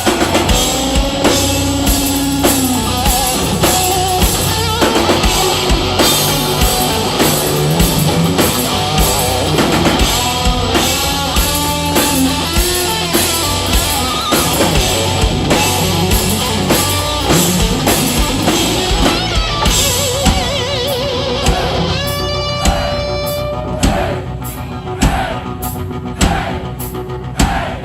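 Live rock band playing an instrumental break: an electric guitar lead with bending, wavering notes over drum kit and bass. The band plays somewhat quieter for the last few seconds.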